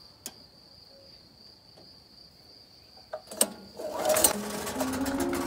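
Portable petrol generator being pull-started: a couple of clicks at the controls, then the recoil cord is yanked and the small engine turns over rapidly and loudly for about a second and a half before cutting off suddenly.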